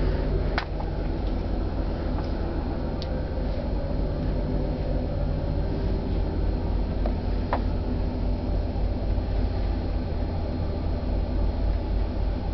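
Steady low drone of a ferry's engines and onboard machinery heard inside a passenger cabin, with a couple of faint clicks, one just after the start and one about halfway through.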